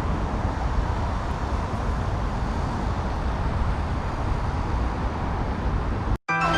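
Steady rumbling road and wind noise picked up by an action camera on a moving bicycle, with traffic in it. Near the end it cuts off abruptly and music with chiming notes starts.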